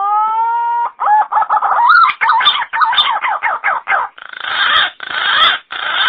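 Green pigeon (punai) lure call. A held whistle rises in pitch and breaks off just under a second in. A fast run of warbling, up-and-down whistled notes follows, turning into harsher, raspy notes from about four seconds.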